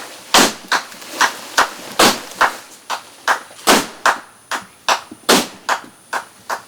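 A long series of sharp percussive strikes, about two or three a second and unevenly spaced, each one short and crisp.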